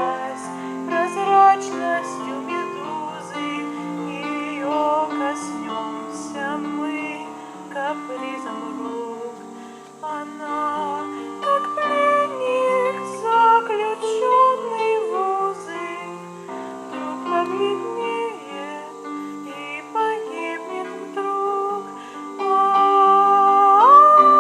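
Gentle music, a plucked-string accompaniment under a wandering melody. Near the end a voice comes in louder, humming a long held note.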